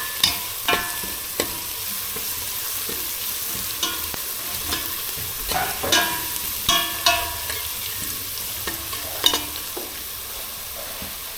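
Pot of mắm kho (fermented fish paste) bubbling and sizzling on the stove as it comes to the boil, with a steady hiss. A utensil stirs it, clinking sharply against the pot several times.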